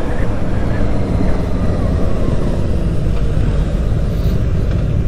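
Motorcycle riding through town traffic: the engine running steadily under a constant rush of wind and road noise.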